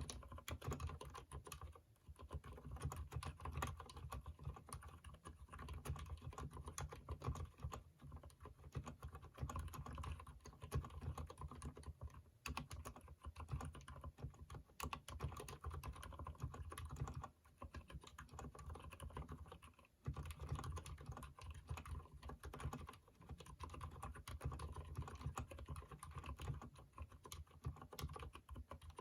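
Continuous typing on a Durgod keyboard with lubed Cherry MX Silent Red linear switches: a steady stream of soft, muffled keystrokes, with brief pauses about 2, 17 and 20 seconds in.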